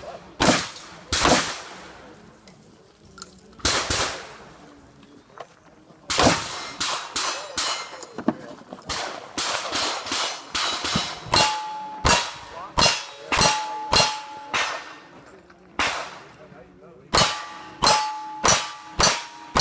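A string of gunshots at a cowboy action shooting stage. Steel targets ring out after many of the hits. The shots come irregularly at first, then in a faster, steadier string about every half second to second over the second half.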